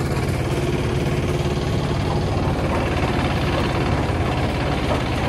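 Hand tractor engine running steadily with a rapid, even chugging as it travels along a dirt farm path.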